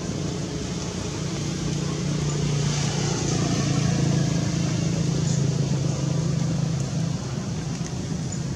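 A steady engine hum, like a motor vehicle running nearby, swelling about two seconds in and easing off near the end.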